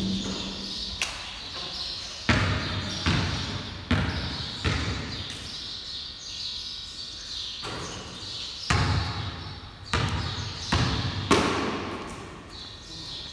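A basketball bouncing on a bare concrete floor in a large, echoing garage bay: a dozen or so sharp bounces, each trailing an echo, in two uneven runs with a quieter spell in the middle.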